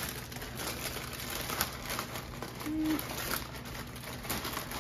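Clear plastic zip-top freezer bags crinkling and rustling as they are handled and packed, in a run of irregular crackles. A brief low tone sounds a little past halfway.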